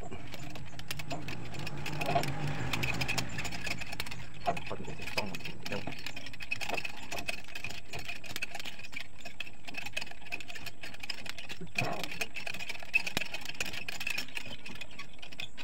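Small motor whining steadily as it drives a homemade jack built from motorcycle chain and sprockets, with the roller chain and gears rattling and clicking throughout.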